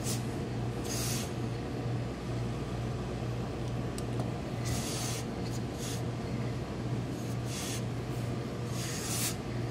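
Several short hisses of steam from a hose-fed tailor's steam iron as suit cloth is pressed, over a steady low hum.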